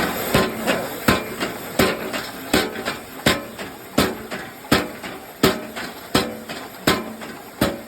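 Homemade da Vinci-style power hammer running, its sand-filled hammer head striking the anvil in a steady rhythm about once every three quarters of a second, over a steady hum from the drive.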